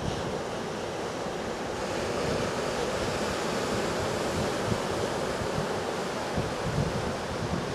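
Ocean surf breaking in a steady rushing wash, with wind buffeting the microphone in low, uneven rumbles.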